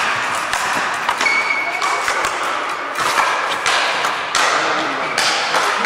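Speed-ball rackets hitting the tethered ball in a fast rally: a series of sharp, quick hits.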